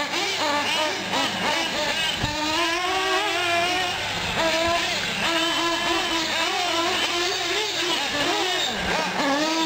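Several nitro-powered 1/8-scale R/C trucks running around the track at once, their small high-revving glow engines rising and falling in pitch as they accelerate and back off, overlapping one another.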